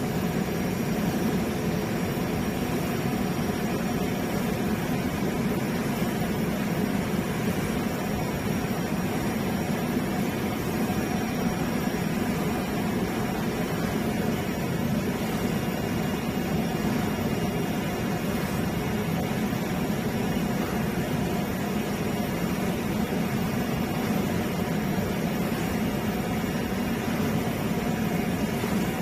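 CNC digital knife cutting machine running: a steady machine hum with a hiss over it, even in level throughout.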